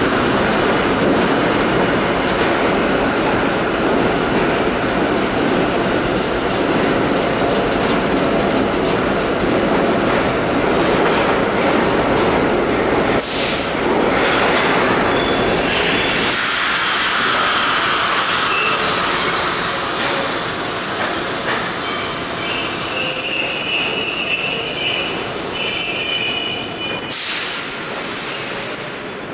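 Vintage R1–R9 'Arnine' subway cars running into a station, wheels rumbling and clattering on the rails. About halfway through the rumble drops away as the train slows, and high, steady wheel squeals ring out to the end. There is a brief hiss about halfway and another near the end.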